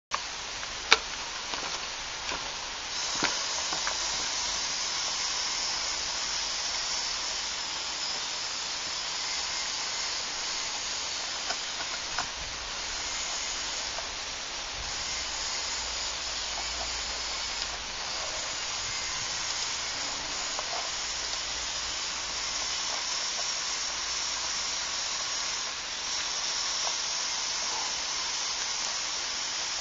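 LEGO Technic remote-control off-road model's electric motors and gear train whirring as a steady high hiss while it crawls over rocks, changing level a few times. Scattered clicks and knocks of plastic parts, the sharpest about a second in.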